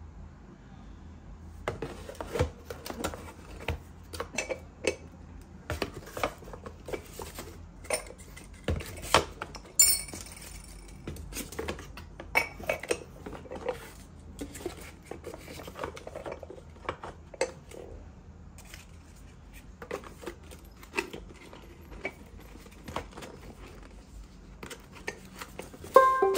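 Ceramic canisters, bamboo lids and a bamboo tray being handled and packed into cardboard boxes: irregular clinks, knocks and rustles, with one brief ringing clink about ten seconds in.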